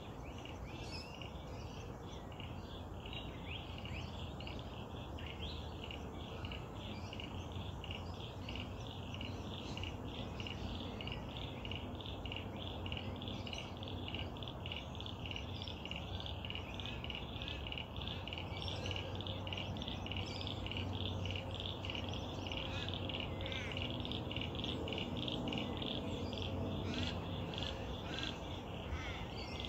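A chorus of frogs calling in a steady, rapid pulsing trill, with birds chirping over it now and then.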